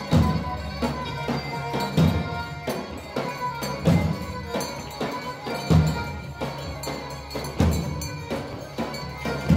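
Pontic folk music: a daouli, the large double-headed drum, beaten with heavy strokes about every two seconds and lighter strokes between, under a sustained melody line.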